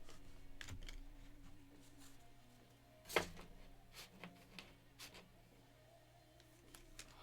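Quiet handling of trading cards: a few soft clicks and taps as cards are slid and set down, the sharpest about three seconds in, over faint background music.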